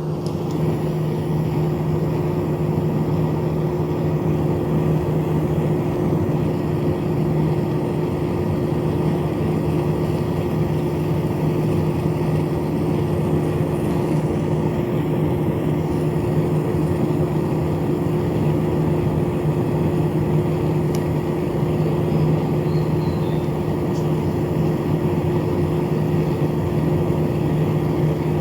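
Small electric fan motor running steadily, a constant hum over a rush of air.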